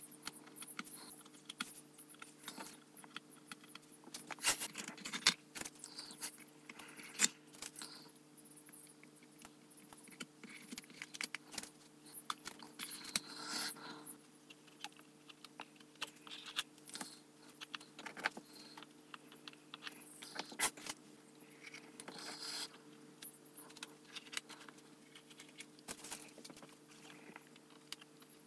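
Steel tweezers clicking and scraping on a plastic model while masking tape is lifted and peeled off, in irregular small clicks and short tearing rustles, over a faint steady hum.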